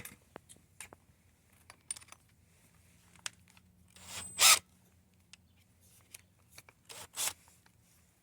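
WD-40 aerosol can spraying in two short hisses onto a drill bit to lubricate it for drilling: a louder spray about halfway through and a shorter one near the end, with small handling clicks around them.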